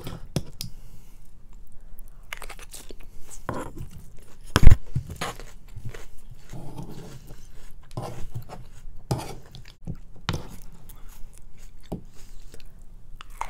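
Close-up eating sounds: chewing a mouthful of noodle salad, with utensils clicking and scraping as the salad is mixed on the tray. One loud thump about four and a half seconds in.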